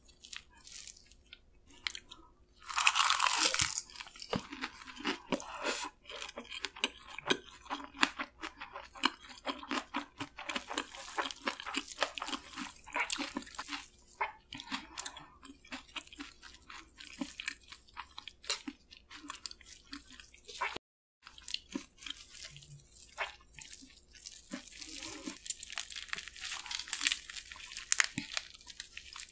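Close-miked eating sounds of spicy marinated raw crab with rice: many wet clicks, chewing and crunching, with a louder noisy burst about three seconds in and a short silent break about two-thirds of the way through.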